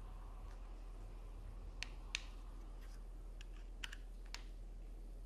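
About five small, sharp plastic clicks and taps, the loudest about two seconds in, as a screwdriver works at the battery cover of an IKEA TRÅDFRI remote, over a low steady hum.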